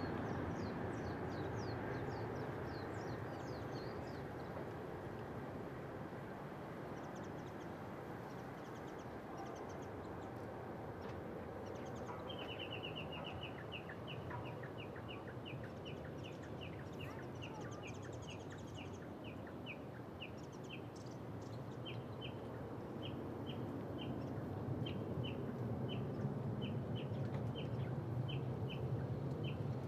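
Distant Boeing 777-300 twin jet engines at takeoff thrust, a steady roar that swells over the last few seconds as the airliner climbs away. Birds chirp over it: a flurry of high chirps at the start, then a regular short chirp about twice a second from midway on.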